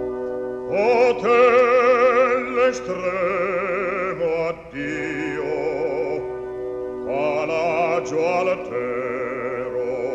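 Classical, operatic-style singing with a wide vibrato over held instrumental accompaniment. The voice enters about a second in, breaks off briefly around four and a half seconds, and comes back near seven seconds.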